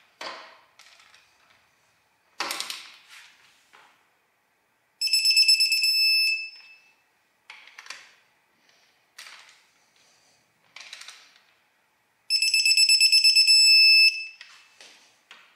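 Digital torque wrench beeping twice as each ARP head-stud nut reaches its 33 ft-lb set point. Each beep is a high, rapidly pulsing tone about a second and a half long. Short clicks and rattles of the wrench and socket on the nuts come in between.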